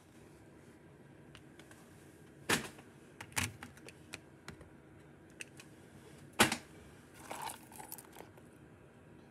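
Fidget toys and their packaging being handled and set down: scattered sharp taps and knocks, the two loudest about two and a half and six and a half seconds in, with a short rustle around seven and a half seconds.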